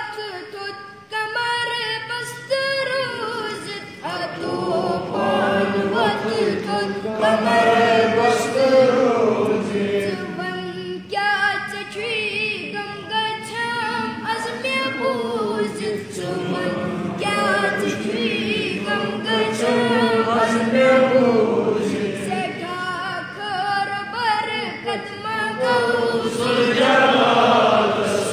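An unaccompanied Kashmiri hamd, a devotional hymn praising God, sung by a young boy. A fuller chorus of voices joins in about four seconds in.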